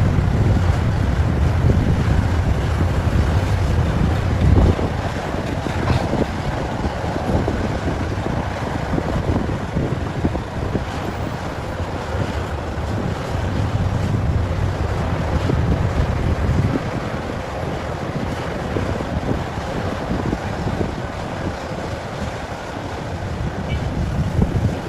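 Wind buffeting the microphone: a steady low rumble and rushing noise that swells and eases.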